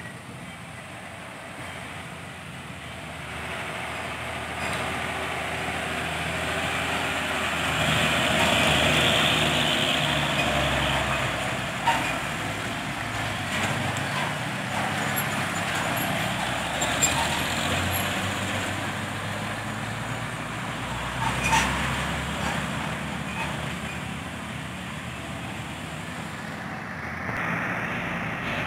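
Heavy diesel trucks pulling uphill under load, engines running with passing traffic. The noise swells to its loudest about eight to ten seconds in, with a few short sharp knocks later on.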